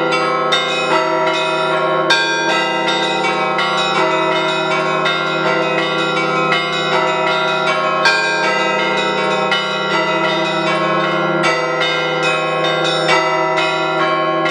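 Russian Orthodox church bells rung by hand by a bell ringer: a continuous festive Paschal peal, with the smaller bells struck rapidly several times a second over the sustained hum of the larger bells.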